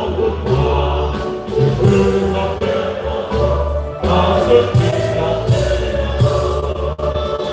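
Church choir singing a hymn with instrumental accompaniment and a steady low bass line underneath.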